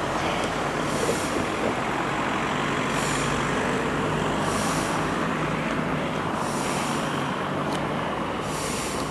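Diesel shunting locomotive's engine running steadily. A short high-pitched sound comes back about every one and a half to two seconds.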